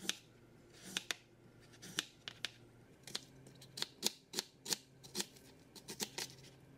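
Chef's knife slicing carrot and onion into strips on a plastic cutting board: a string of sharp knocks of the blade striking the board, coming faster in the second half.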